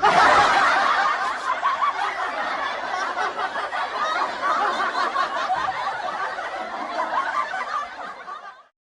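Laugh track: many people laughing at once, a sitcom-style audience laugh. It starts abruptly and fades out near the end.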